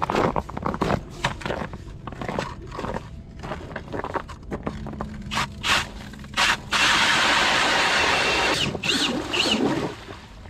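Footsteps crunching on snow-covered lake ice, uneven strokes for the first several seconds. From about seven seconds in, an ice auger bores into the ice with a steady, loud grinding hiss that lasts about three seconds.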